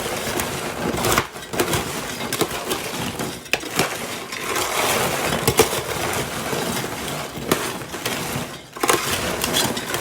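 Warm caramel-coated popcorn being stirred and tossed to cool so it doesn't dry in clumps: a dense, crunchy rustle of kernels with three brief pauses.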